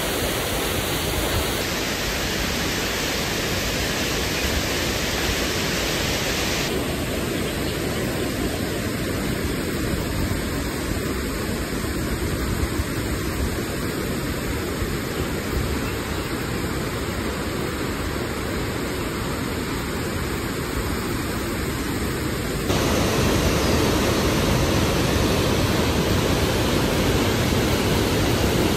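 Water rushing out through an opened dam gate, a steady, loud rushing noise. Its character changes abruptly a few times, and near the end it steps up louder.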